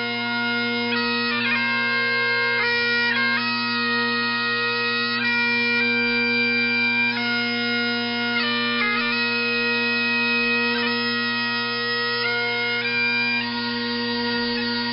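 Bagpipes playing a melody of held notes over steady drones.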